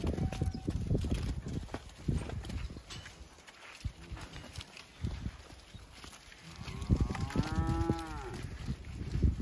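A black-and-white dairy calf gives one bawl, rising then falling in pitch and lasting just over a second, in the last third. Around it, calves' hooves thud and shuffle on the dirt.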